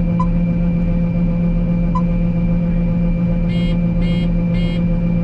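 Combine harvester running steadily while unloading grain, a constant machine hum with steady tones. About three and a half seconds in, three short electronic beeps half a second apart.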